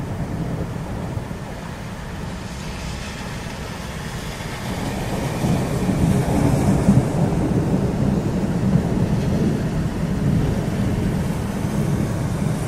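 Thunder rolling in a summer city storm: a long, low rumble that swells about five seconds in and keeps rolling, with rain falling.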